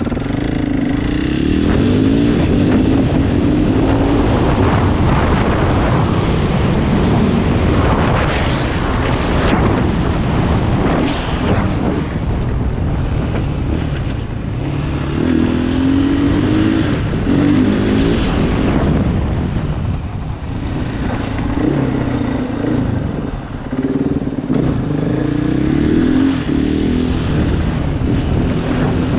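KTM 500 EXC dirt bike's single-cylinder four-stroke engine running under way, its pitch rising and falling with speed.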